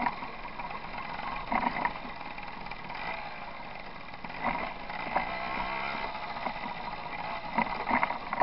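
Tomos moped's small two-stroke engine running while riding over a rough gravel track, with sharp jolts and rattles from the bike hitting stones several times.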